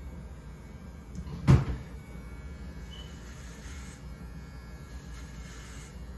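Steady low hum of electric hair clippers running, with a single sharp knock about a second and a half in.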